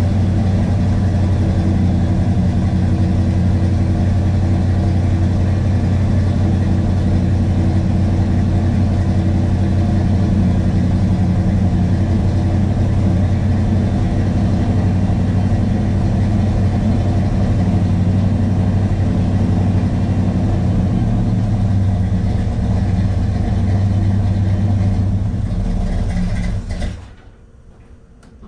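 1968 Pontiac GTO's rebuilt 400 cubic-inch V8 idling steadily on its first start in six months, then cutting out abruptly near the end. The engine has no choke and is cold-blooded, so it won't keep running cold.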